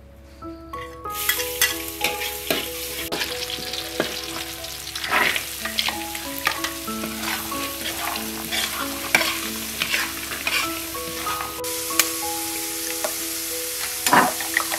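Diced carrots and green beans sizzling in hot oil in a metal wok, stirred with a spatula that scrapes and clicks against the pan; the sizzling starts about a second in. Soft background music plays underneath.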